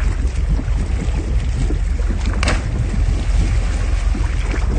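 Steady low rumble of a boat sitting on the water with wind on the microphone, and one short sharp splash about halfway through as a cliff jumper hits the water some way off.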